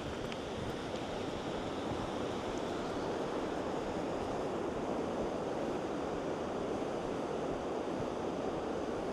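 Steady rushing of rain-swollen stream water, a constant even wash.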